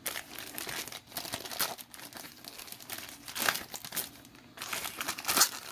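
Packaging wrap being torn open and crumpled off a boxed product, an uneven crinkling and rustling with two louder rips near the middle and near the end.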